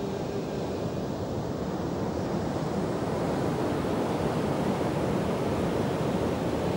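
Sea surf breaking and washing around shoreline rocks, a steady rushing noise.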